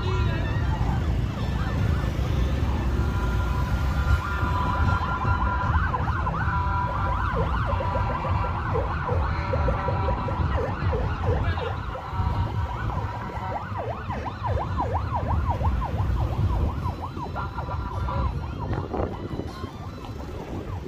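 Vehicle sirens sounding together, their pitch holding and then warbling quickly up and down through the middle, over a steady low rumble.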